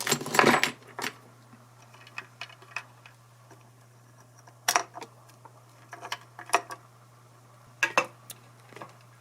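Hands working on an electric guitar's small metal parts: a loud scraping rustle at the start, then scattered sharp clicks and clinks, over a steady low hum.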